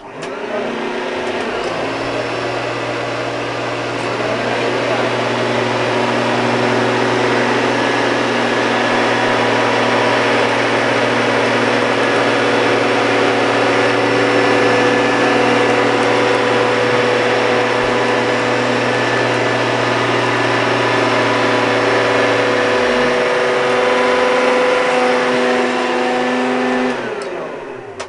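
Two Hoover upright vacuum cleaners, a Turbopower Boost and a Junior, running together at full power with a steady whine. One drops out about 23 seconds in, and the other is switched off near the end, its motor winding down.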